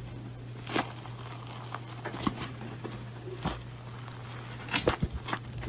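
Scattered soft crackles and clicks of a crinkly brown object being handled and torn open by hands, over a steady low hum.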